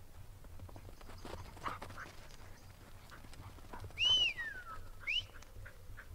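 Hooves and paws patter quickly on dry, bare ground as a sheep and a Border Collie run. About four seconds in, a handler's loud whistle rises and then slides down, and a short rising whistle follows a second later.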